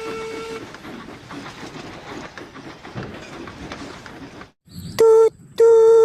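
Steam train sounds: a whistle note fading at the start, then a rapid, even chugging rhythm, then two loud whistle blasts near the end, the second longer.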